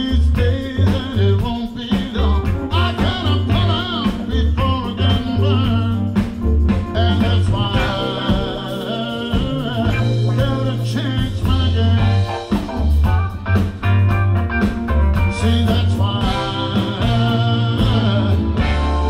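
Live blues and soul band playing a song: electric guitar, bass and drums with a horn section of saxophones and trumpet, and a male singer.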